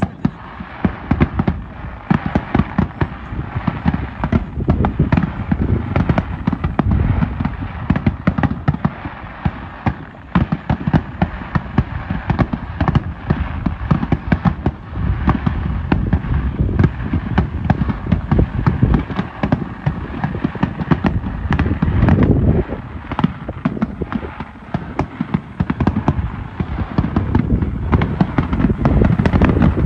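Fireworks display firing a dense barrage: many shell bursts in quick succession, bangs overlapping with no pause between them.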